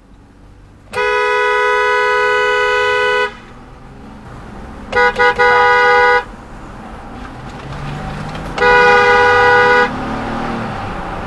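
Two-tone car horn honked three times: a long blast of about two seconds, then two quick taps running into a blast of about a second, then a third blast just over a second long. Traffic noise runs between the honks.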